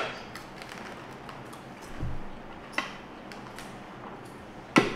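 Wooden game pieces clicking onto a wooden board, a few separate sharp taps, the loudest near the end, with a dull low thump about two seconds in.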